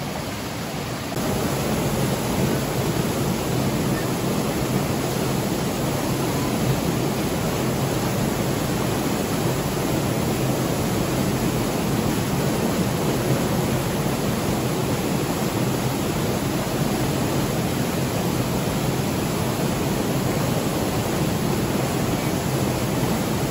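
Ulu Petanu waterfall pouring, a steady rush of falling water that gets louder about a second in.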